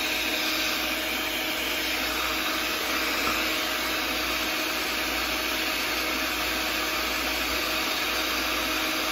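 Sunbeam electric stand mixer running steadily, its beaters whirring through egg batter in a stainless steel bowl.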